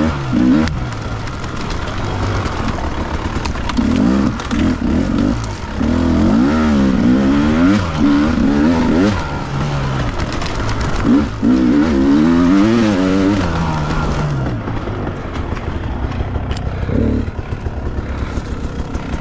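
Off-road motorcycle engine working over rocks, its revs swinging up and down in quick throttle blips in several stretches, then dropping to a lower, steadier run after about 14 seconds.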